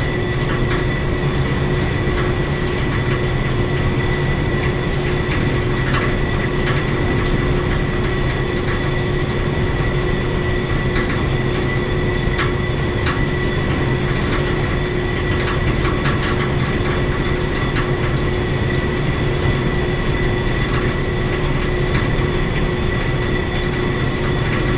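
Building plant-room machinery running with a steady hum: a low drone with a held mid tone and a high whine, overlaid with irregular light rattling clicks.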